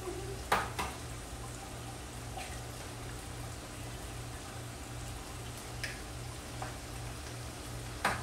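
Potatoes and eggs frying in pans on a gas stove, a steady sizzle, with two sharp taps about half a second in and another near the end.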